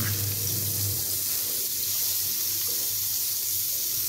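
Margarine sizzling as it melts in a hot wok: a steady hiss.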